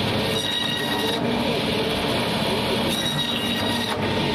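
Electric band saw running steadily as its blade cuts through a katla carp's flesh and bone. A high thin squeal comes in twice: about half a second in and again about three seconds in.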